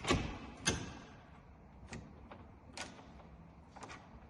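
Sharp metallic clicks from a profile lock cylinder as the jammed broken key is turned and its cam strikes: two loud clicks in the first second, then three fainter ones about a second apart.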